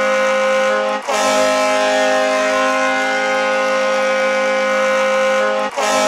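The Danbury Jr. Hat Tricks' ice hockey goal horn blasting a chord of several steady tones. It sounds in long blasts with a brief break about a second in and another near the end.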